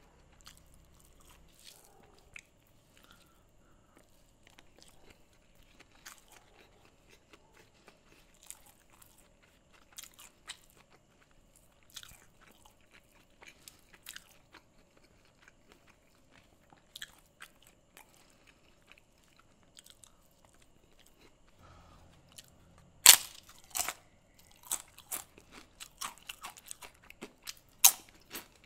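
Fingers mixing cooked rice and curry on a banana leaf, faint soft squelches and clicks, then, a little past halfway, a run of loud, sharp crunches as a mouthful with crisp fried food is bitten and chewed.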